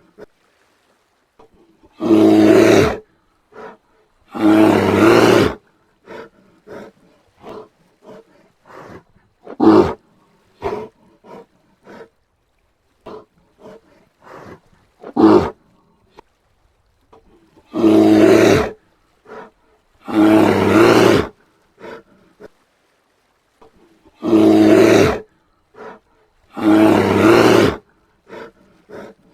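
Brown bear roaring: loud, deep roars that mostly come in pairs about two seconds apart, three such pairs, with two shorter sharp calls in between. Softer short grunts and huffs fill the gaps.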